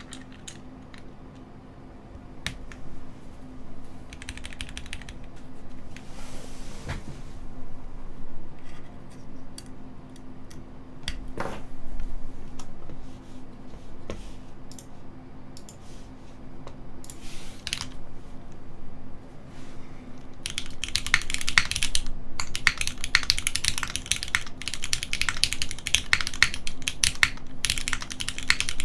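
Custom mechanical keyboard with lubed, retooled Cherry MX Black linear switches on an aluminum plate and GMK keycaps, being typed on. For about twenty seconds there are scattered single keystrokes with gaps between them, then fast continuous typing.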